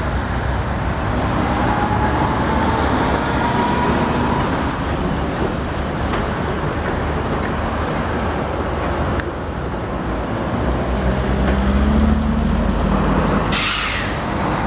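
Heavy lorry pulling a low-loader trailer past at slow speed, its diesel engine running steadily over tyre and road noise, with other traffic behind. Near the end there is a short hiss.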